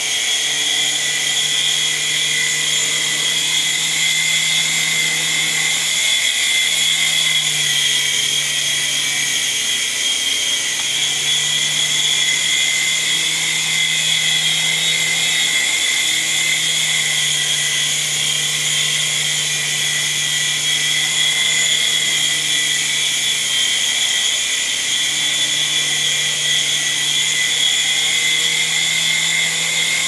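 Small electric motors and coaxial rotors of an FY8008 3.5-channel RC toy helicopter running in flight: a steady high-pitched whine over a lower hum that shifts slightly in pitch now and then as the throttle changes.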